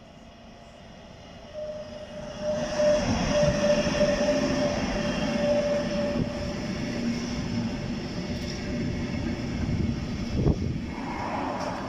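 DB Class 185 electric locomotive hauling an intermodal container freight train past at close range: the rolling rumble swells sharply about two to three seconds in as the locomotive arrives, with a steady high tone over it for a few seconds. The container wagons then roll by with a steady rumble and a single sharp knock near the end.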